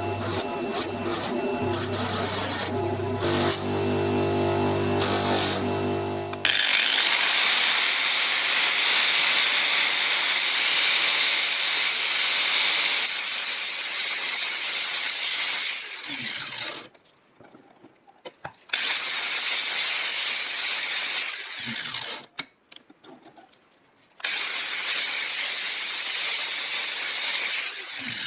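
Power tools at work on an old rusty hammer. For the first six seconds or so a motor runs with a steady hum. Then come long bursts of harsh, high abrasive hissing, broken twice by brief near-quiet gaps.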